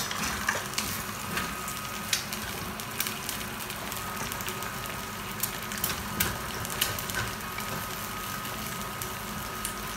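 Cooked white rice frying in a nonstick pan with a steady sizzle, stirred with a wooden spatula that gives scattered light taps and scrapes against the pan.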